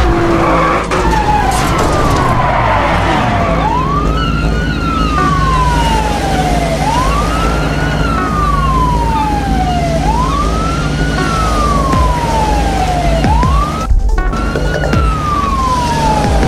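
Police car siren wailing, each cycle rising quickly and falling slowly, about once every three seconds, over a steady low drone.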